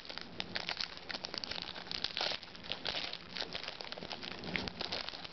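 Foil wrapper of a trading-card pack crinkling and crackling as hands tear it open.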